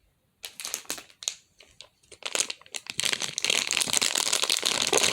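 A crinkly wrapper being handled and crumpled, in scattered crackles at first and then continuously from about three seconds in.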